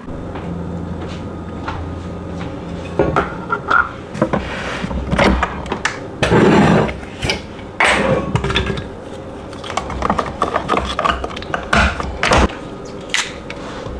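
Knocks and clicks of a single-serve pod coffee maker being handled: the lid lifted and a coffee pod set in. A low hum runs for the first couple of seconds, and there is a louder thump a little past the middle.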